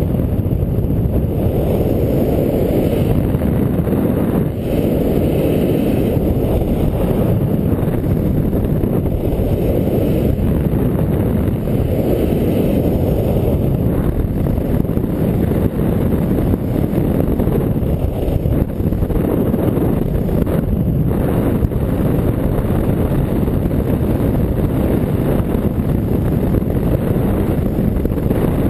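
Wind rushing over the camera's microphone during a paraglider flight: a loud, steady, deep buffeting.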